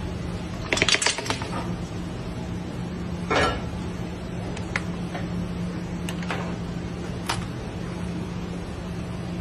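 A frying pan turned over onto a metal paella pan: a rattle of knocks about a second in as the pans meet, a scraping swish a couple of seconds later, then a few light clicks. A steady low hum runs underneath.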